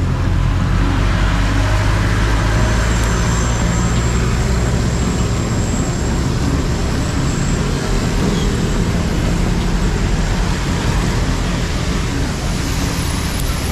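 Steady road traffic: motor vehicles running close by, with a deep engine rumble that eases after about five seconds.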